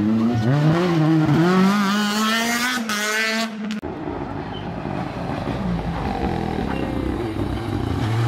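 Rally car engine revving hard through a hairpin, its pitch swinging up and down with throttle and gear changes and climbing steadily toward the end of the run. About four seconds in it cuts off abruptly, leaving a fainter, more distant engine.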